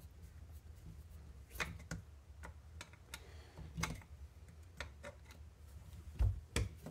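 Plastic RC truck parts and small screws being handled on a workbench: scattered light clicks and taps, with two duller knocks near the end.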